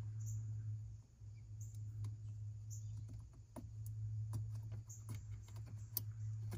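Faint, scattered small clicks and rustles of wiring being handled as a terminal pin is pushed into the back of a plastic wiring-harness connector, over a steady low hum.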